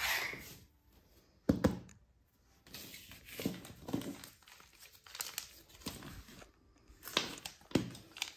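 A foil pouch of Whiskas kitten food being torn open and crinkled, with irregular crackly rustling and two sharp knocks about a second and a half in.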